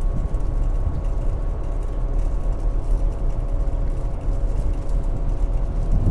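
Steady low mechanical hum of HVAC equipment running, with a few faint steady tones over a low rumble.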